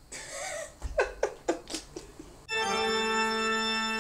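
A few short bursts of laughter, then about two and a half seconds in a held organ chord starts suddenly and sustains: the opening of the outro theme music.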